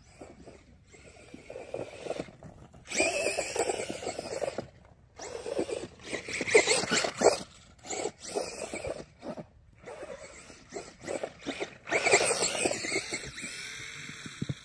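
Brushless electric motor of a Traxxas Bandit RC car revving in several bursts of throttle, its whine falling in pitch near the end as the motor spins down.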